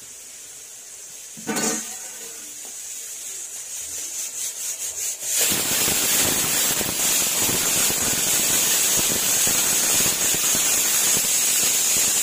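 Ground masala paste dropped into hot oil and fried onions in a kadai: a low frying sound at first, then a loud, steady sizzle from about five seconds in as the paste hits the oil.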